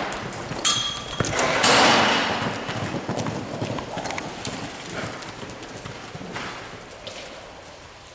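A horse's hooves clip-clopping, growing fainter as it moves away, with two loud bursts of rushing noise in the first two seconds.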